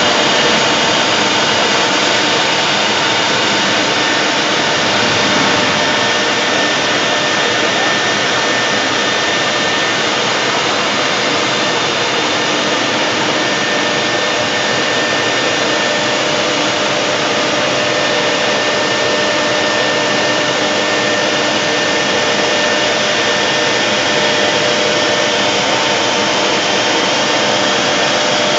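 CNC router spindle running at speed as its bit cuts a raised-panel door profile into a board: steady cutting noise with a constant spindle whine.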